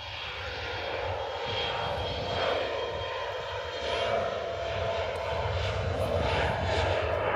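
Aircraft engines running on the airfield, gradually growing louder, with a faint high whine over a steady rumble.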